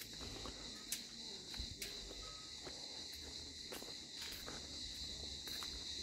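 Steady high-pitched insect chorus, with a few faint, irregular footsteps on paving.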